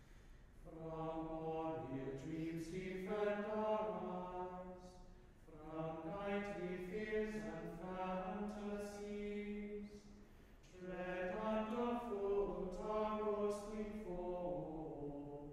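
Small choir chanting a cappella in long sung phrases, with short breaks about every five seconds.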